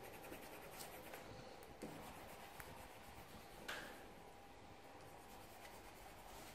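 Faint scratching of a coloured pencil on paper, with a few small clicks and one slightly louder tick about halfway through.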